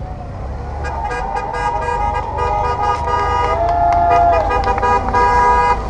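Horn-like tooting, several pitched tones sounding together, starting about a second in, growing louder and cutting off near the end, over a low rumble of wind on the microphone.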